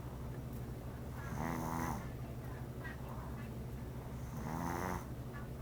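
A sleeping pet snoring: two slow, rasping snores about three seconds apart.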